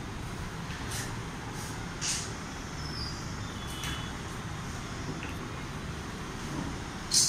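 Road traffic: a steady low rumble of passing vehicles, with several short hisses, the loudest near the end.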